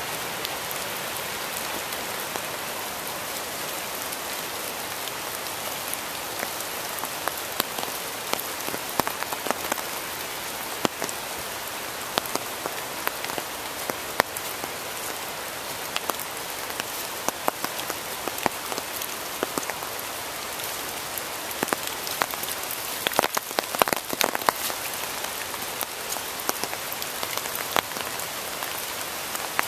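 Steady rain falling in woodland, an even hiss with many sharp single drop hits scattered through it, clustered most thickly a little past three quarters of the way through.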